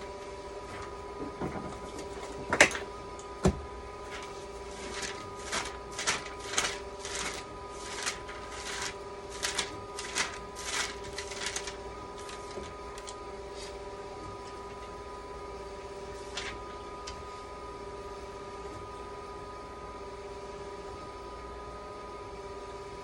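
Dialysis machine running with a steady hum of a few fixed tones. Over it, for about ten seconds, comes an irregular run of quick clicks and taps from handling the machine, with two louder knocks among the first of them.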